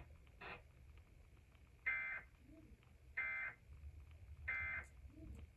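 Emergency Alert System end-of-message header: three short bursts of screechy digital data tones, evenly spaced about 1.3 seconds apart, signalling the end of the warning broadcast.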